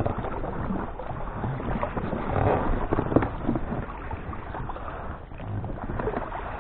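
An inflatable boat being pushed off a shallow, muddy bottom with a wooden pole: splashing and scraping of the pole and hull in the water, with a few knocks.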